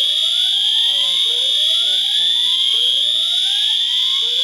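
Fire alarm voice evacuation system sounding its whoop evacuation tone between spoken messages: a rising whoop that repeats about every second and a half. Over it a steady, high-pitched alarm tone sounds without a break.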